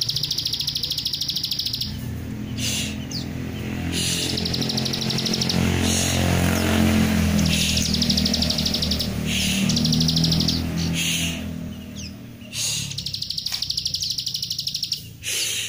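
Plain prinia (ciblek sawah) singing its rapid 'nembak' song: a fast, even, high trill in several bursts of one to two seconds with pauses between. A low rumble swells and fades through the middle.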